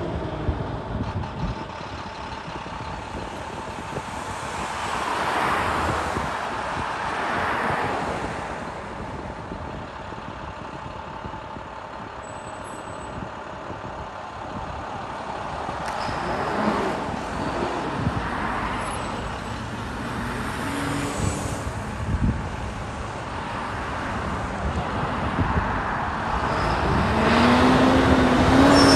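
School bus engine running as the bus pulls out and drives along the road, with tyre and traffic noise that swells and fades a few times. Near the end the engine note climbs and grows louder as the bus accelerates toward the microphone.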